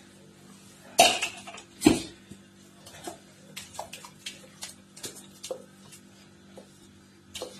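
Stainless-steel mixer-grinder jar knocking and scraping against a steel mixing bowl as thick spice paste is tapped out onto raw chicken. There are two louder knocks about a second apart near the start, then a run of lighter metal clinks.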